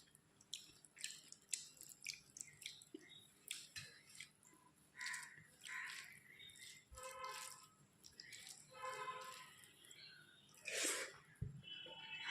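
Faint eating sounds: wet chewing and lip smacks with many short clicks. Two brief pitched hums come about seven and nine seconds in.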